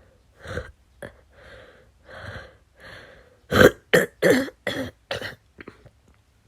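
A chesty bronchitis cough: several quieter coughs and throat clearing, then a quick run of about five loud, harsh coughs in a row a little past the middle.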